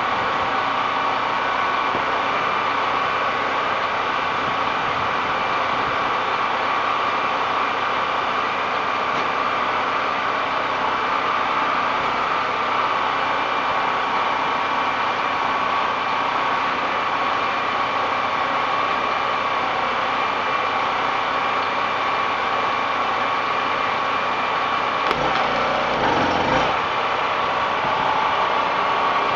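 A small engine running steadily, with a constant mid-pitched drone; about 25 seconds in, a brief lower rumble joins it.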